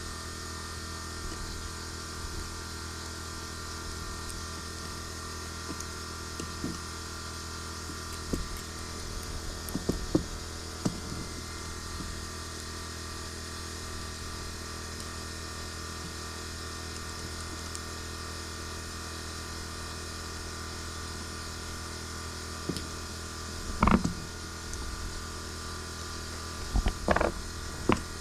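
Scattered light clicks and knocks of small hard parts being handled, louder near the end, over a steady low mechanical hum.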